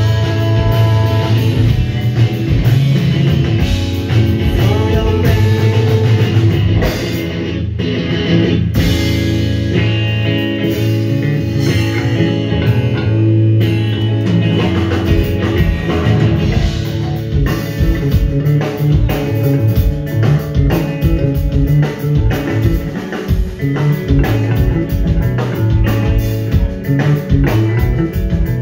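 Live math rock trio playing: electric guitar, bass guitar and drum kit over a club PA, heard from the audience. The drum hits stand out more sharply from about halfway through.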